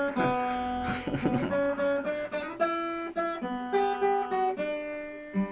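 Acoustic guitar playing a song's instrumental intro: single picked notes follow one another and ring on, with no singing.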